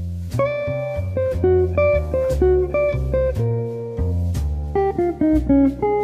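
Background music: a plucked guitar melody over a bass line.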